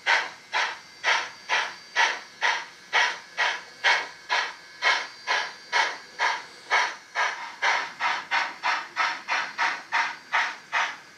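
Steam exhaust chuffs played through the small speaker of the ESU LOKSound DCC decoder in an HO scale Canadian Pacific H1B Hudson model as it runs. About two chuffs a second at first, quickening to about three a second from around eight seconds in.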